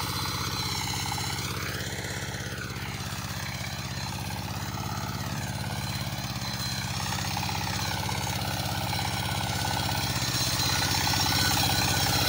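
20 hp two-wheel walking tractor's single-cylinder diesel engine running steadily under load as it pulls a plough through the soil, growing a little louder near the end.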